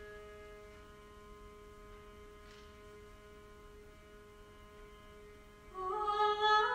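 A soft, sustained chord held by a chamber ensemble. Near the end a louder pitched note enters and slides upward in steps.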